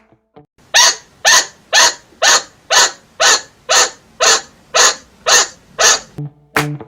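A chinchilla giving its barking alarm call: about eleven sharp, evenly spaced barks, roughly two a second, then stopping.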